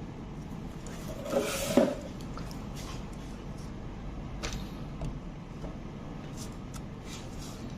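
Components and equipment being handled on a workbench: a scrape and clatter about a second and a half in, then a few light clicks and taps, over a steady low background hum.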